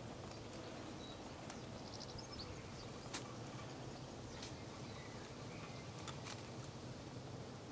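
Faint background noise with a steady low hum, broken by a few sharp clicks: the loudest about three seconds in, two more just after six seconds. Faint short high chirps come and go.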